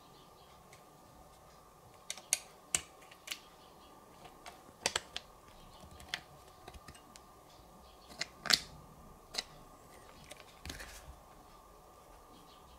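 Irregular sharp plastic clicks and taps from handling the monitor's clip-on side shields, about a dozen, the loudest about eight and a half seconds in, with a short rustle near the end.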